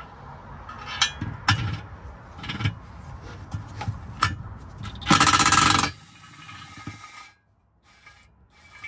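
Cordless impact wrench running in one short burst of rapid hammering, about five seconds in, as it backs out a bolt on a car's transmission mount bracket. Before it come sharp metallic clinks of the socket and steel parts, and after it quieter scraping as the bracket is handled.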